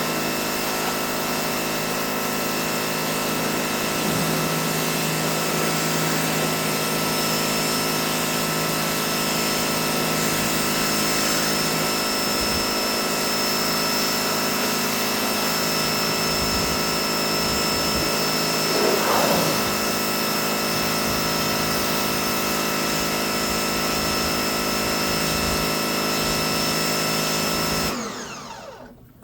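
Pressure washer running steadily, its motor and pump giving a constant whine over the hiss of the spray. The sound dips away sharply about a second before the end.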